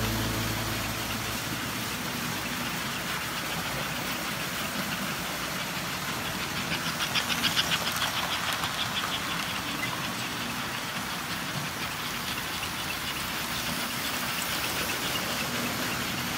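Several vintage American Flyer toy trains running on their track, a steady mechanical rumble of motors and wheels. About seven seconds in, a rhythmic clicking grows louder as a locomotive passes close by.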